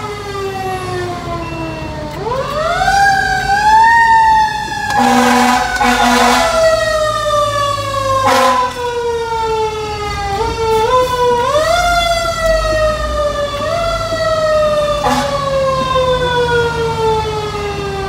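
Fire engine siren wailing, slowly falling in pitch and brought back up several times, heard from inside the truck's cab. Air horn blasts cut in over it: a pulsed series a few seconds in, then two short blasts later on.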